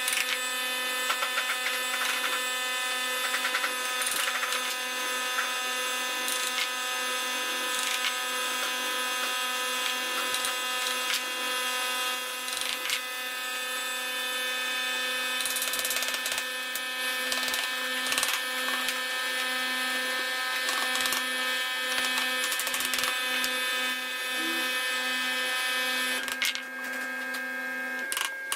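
Power tool motor running steadily at one pitch on wood, with scattered clicks and knocks; the motor note stops just before the end.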